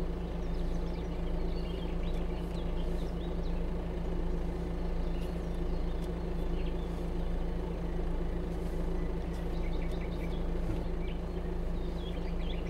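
Peugeot 2008's engine running steadily, heard as an even, unchanging low hum.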